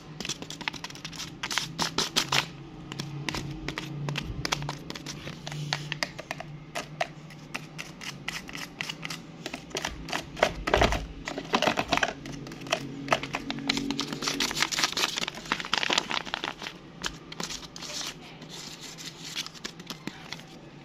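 Paper crinkling and rustling with irregular light clicks and taps as a crumpled paper blind bag and handmade paper fake nails are handled, busiest in the middle.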